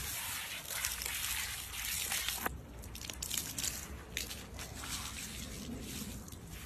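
Water spraying from a garden hose nozzle onto a wet dog's coat and the pavement. A steady hiss drops away sharply about two and a half seconds in, leaving irregular splashing and dripping.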